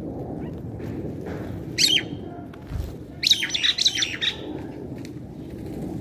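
Birds calling: a short chirp cluster about two seconds in, then a longer run of sharp, harsh chirps and squawks for about a second, over a steady low background noise.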